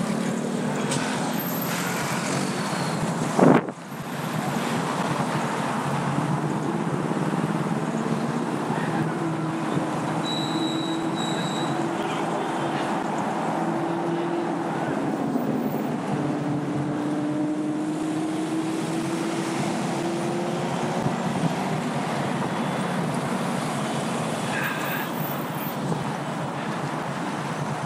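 Steady city traffic noise heard from a moving bicycle, with a low engine hum rising and falling through the middle. There is a single sharp knock about three and a half seconds in and two short high beeps around ten seconds in.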